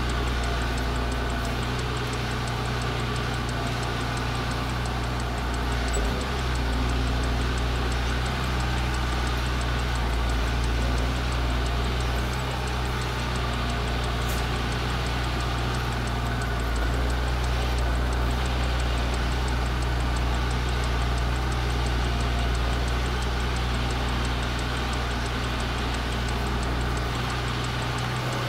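Semi truck's diesel engine running steadily at low speed, heard from inside the cab.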